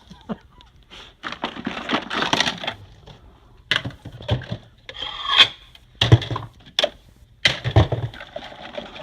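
Plastic food storage containers and lids rubbing, scraping and clattering as they are handled and packed into a box. There is a stretch of scraping, then several separate knocks and thuds.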